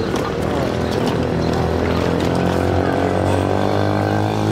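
A motor vehicle's engine running with a steady hum that comes up about a second and a half in and holds steady.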